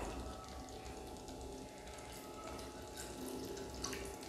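A small amount of water poured from a glass jug into a pressure cooker pot of sautéed chicken masala, faint and heard near the end.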